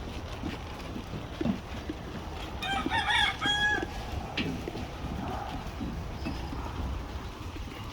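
A rooster crowing once, a call of about a second in a few stepped notes, about three seconds in, over steady low farmyard background noise.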